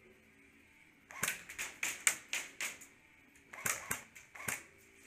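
Airsoft gunfire in two quick strings of sharp shots, about four a second. The first string lasts under two seconds, and after a short pause a second, shorter string follows.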